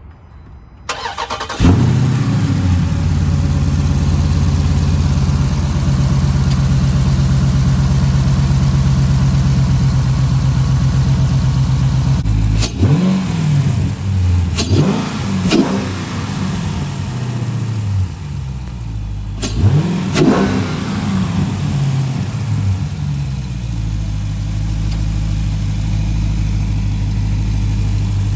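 Dodge Challenger Scat Pack's 392 (6.4-litre HEMI V8) engine cranking and firing up about a second in, then running at a steady fast idle. A little past midway it is blipped several times in quick succession, each rev rising and falling sharply, before it settles back to a lower, steady idle.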